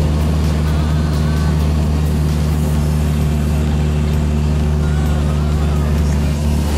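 Single-engine Cessna light aircraft's piston engine droning steadily in flight, heard from inside the cabin.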